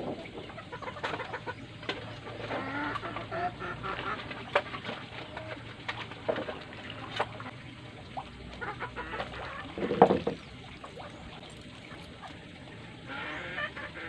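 Chickens clucking, with scattered knocks and a louder thump about ten seconds in.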